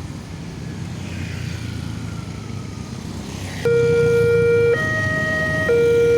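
A railway level-crossing warning siren starts up about three and a half seconds in, an electronic two-tone signal switching between a lower and a higher tone about once a second. Road traffic rumbles under it.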